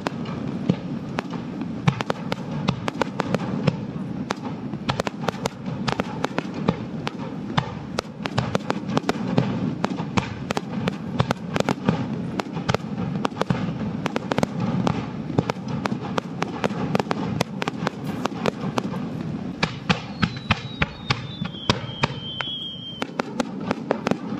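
Fireworks shells bursting on the sea surface in the kaijō jibaku display, several sharp bangs a second in uneven succession over a steady low rumble. About twenty seconds in, a single falling whistle sounds.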